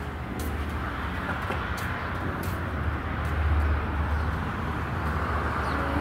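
Road traffic: a vehicle passing, a steady low rumble with tyre hiss that swells about halfway through.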